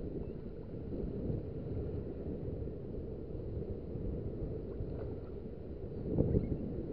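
Wind buffeting the microphone over shallow sea water, with a louder splash about six seconds in.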